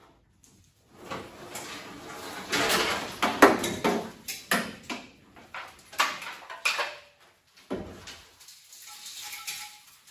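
Steel body shell of a Holden FE wagon turning on a homemade pipe-and-tube rotisserie: scraping, rattling and clunking of metal at the pivot and in the shell, with several sharp knocks in the middle. It tails off into a softer scrape with a brief squeak near the end.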